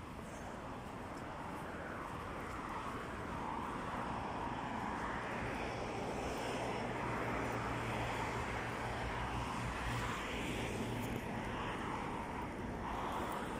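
Steady rush of distant engine and traffic noise, with a low steady hum, building up gradually over the first few seconds.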